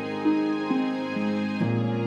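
Instrumental background music: held notes moving stepwise from one pitch to the next, with a deeper note coming in near the end.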